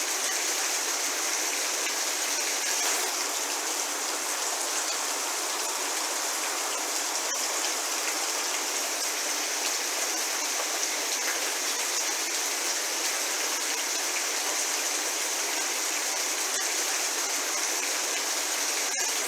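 Steady medium rain: an even hiss with no let-up, and now and then a single drop tapping a little more sharply.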